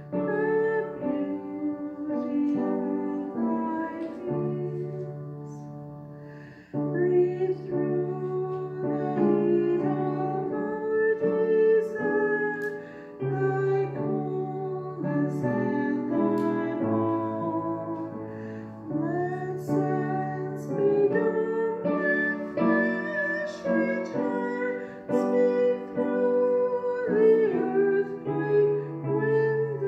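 Slow church music for the offertory, held chords moving step by step under a melody line, softening for a moment about six seconds in.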